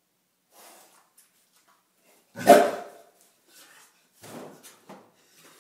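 Potbellied pig giving one short, loud bark about halfway in, with a few fainter short sounds before and after it.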